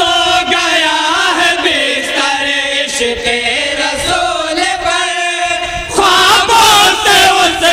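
A group of men chanting an Urdu naat (devotional poem) with no instruments, singing long, drawn-out melodic lines. The voices grow louder about six seconds in as a new phrase begins.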